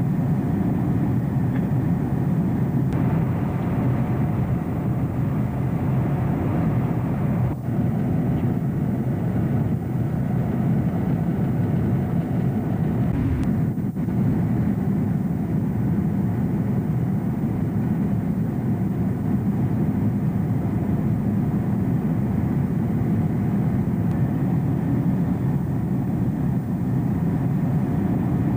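Steady rumble and rush of airliner cabin noise in flight, the jet engines and airflow heard from inside the cabin. Two brief clicks, about a quarter and halfway through.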